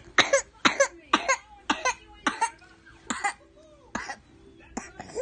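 A toddler's whooping cough (pertussis): a long run of short, harsh coughs, about a dozen in five seconds, often in close pairs, spacing out toward the end. A choking coughing fit with little or no whoop, typical of pertussis in an older toddler.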